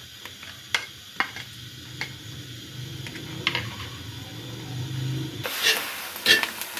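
A metal spoon stirring chopped onions in oil in a non-stick kadai, with scattered clicks and scrapes against the pan. About five seconds in, a loud sizzle starts as the onions fry in the hot oil.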